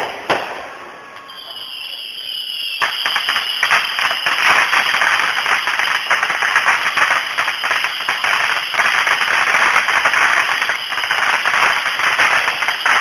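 Fireworks going off: a sharp bang or two at the start, then from about three seconds in a dense, continuous crackling of many small bursts.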